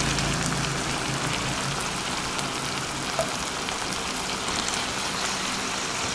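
Keema (minced mutton) frying in oil in a pan, sizzling steadily with small crackles, with fresh-cut potato chunks just added to it.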